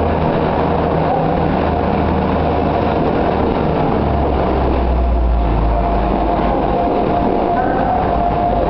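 Diesel multiple unit train's underfloor engines running at the platform: a steady low engine note that drops in pitch about four seconds in, with a steady whine over it.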